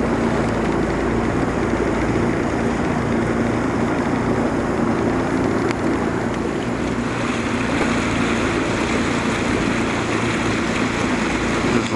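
Boat's outboard motor running steadily at low speed, a constant low drone with a hiss of wind and water over it.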